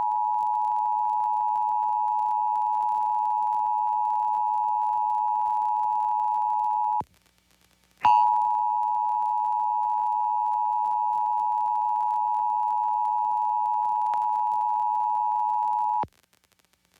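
Emergency Alert System attention signal: the steady two-tone alert (853 and 960 Hz together) held for about seven seconds, cut for about a second, then sounded again for about eight seconds. It marks the start of a required monthly test.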